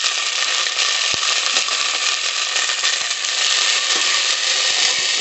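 Freshly washed chopped vegetables sizzling steadily in hot oil with browned onions in a pressure cooker. A few light knocks come from the slotted spoon stirring them.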